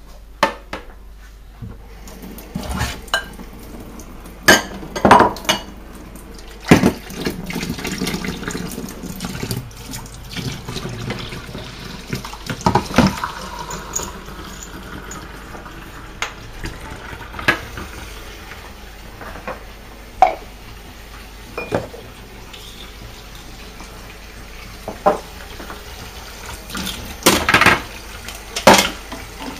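Washing up at a stainless steel kitchen sink: tap water running, strongest through the middle, while crockery and plastic items clatter and knock against each other and the sink, with a burst of clattering near the end.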